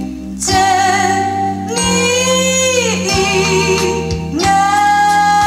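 A vinyl record playing on a Thorens TD 295 MK IV turntable: a song with a singer holding long wavering notes over instruments, and one pitch sliding down about three seconds in.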